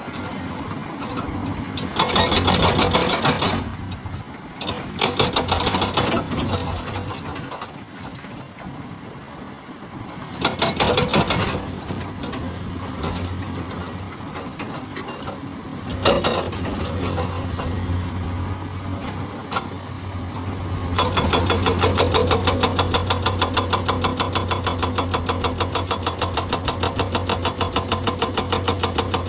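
Komatsu PC200 excavator's hydraulic breaker hammering rock in short bursts of rapid blows, then running continuously from about two-thirds of the way in. The excavator's diesel engine hums steadily underneath.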